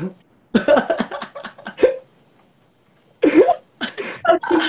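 A man and a woman laughing, in two bouts: one starting about half a second in, the other about three seconds in.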